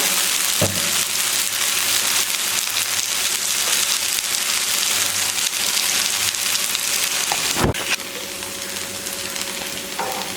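Ragi rava dosa frying in oil on a hot dosa griddle, a steady sizzle. A single knock comes about three-quarters of the way through, and the sizzle is a little quieter after it.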